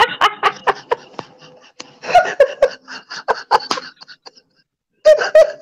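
A woman laughing in runs of short repeated bursts, breaking off briefly about four seconds in, then laughing again near the end.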